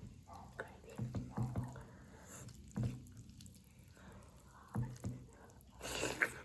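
Close-up wet eating sounds of saucy chicken gravy rice: soft, moist smacks and chews in short separate bursts, with a louder, hissier sound near the end.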